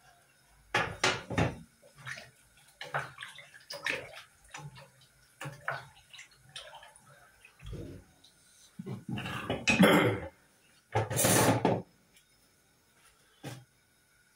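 Cooking at the stove: a wooden spoon knocking and scraping in a stainless steel pot, with clatters of pans and lids. Near the end comes a short burst of hissing, watery noise, louder than the knocks.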